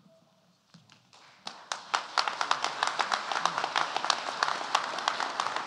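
Audience applauding: a few scattered claps about a second and a half in, quickly building into steady, dense applause.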